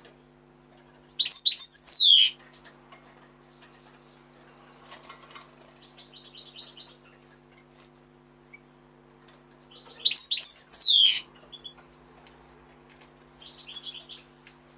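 European goldfinch singing: two loud bursts of quick, high twittering notes with sharp falling sweeps, one about a second in and one about ten seconds in, with softer twittering phrases in between.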